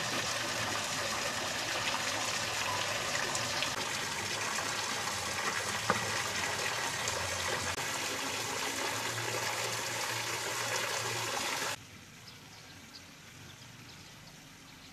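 Steady rush of running water, an even noise that cuts off suddenly about twelve seconds in, leaving only a faint quiet background.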